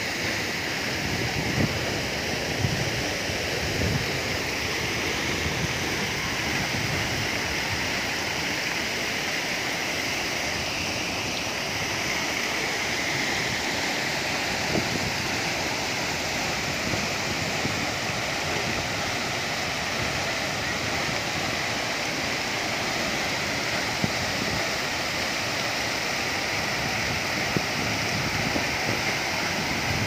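Steady rush of a tall waterfall falling into its plunge pool.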